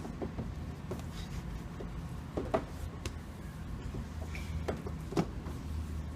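A few light knocks and clicks over a low steady hum, like handling noise while gear is being put away.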